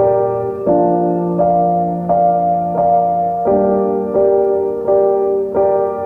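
Background music: a gentle piano-like keyboard playing sustained chords, a new chord struck about every three-quarters of a second.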